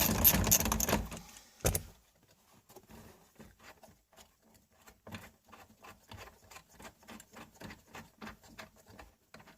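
A ratchet wrench clicking fast for about a second, then a sharp knock, then quieter, slower clicks, about three or four a second, as a seatbelt mount bolt is undone.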